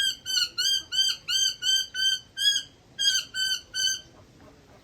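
Eclectus parrot calling a quick run of short, identical whistled notes, about three a second, pausing briefly after about two and a half seconds and then giving four more.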